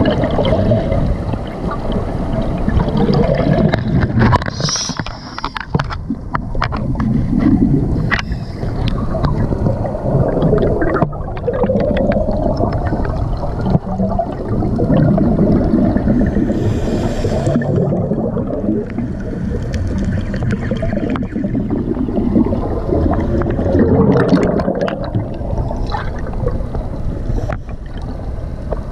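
Muffled underwater rumble and gurgling, heard through a GoPro's waterproof housing next to a scuba diver breathing out bubbles, with a wavering hum and a few sharp clicks.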